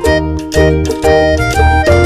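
Background music with a steady beat and a melody of short notes changing several times a second.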